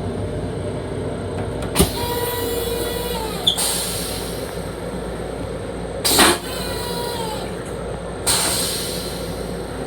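Steady running rumble of an M7 commuter railcar heard from inside its restroom. Over it come several bursts of hissing, with a faint whine in some of them and a couple of sharp clicks; the loudest burst is about six seconds in.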